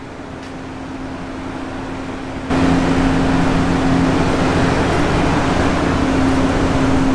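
Strong wind blowing across the microphone: a steady rushing with a low steady hum under it, jumping much louder about two and a half seconds in.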